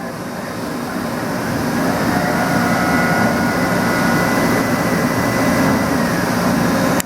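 Mori Seiki SL-25Y CNC turning center running a peck-drilling cycle with its live tool: steady machine noise that grows louder over the first two seconds, with a steady high whine from about two seconds in that fades near six seconds.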